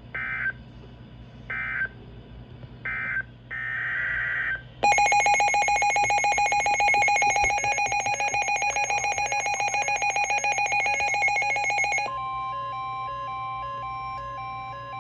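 Emergency Alert System tones marking the end of one alert and the start of the next. Three short digital data bursts (the end-of-message code) and a longer data burst are followed about five seconds in by the harsh two-tone EAS attention signal. The attention signal lasts about seven seconds, then gives way to a single steady tone for about three seconds.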